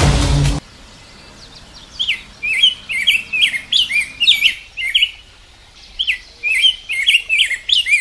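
A songbird singing two phrases of quick, rising and falling chirps, each about two and a half seconds long, with a short pause between. Before that, a loud passage of the soundtrack cuts off suddenly about half a second in.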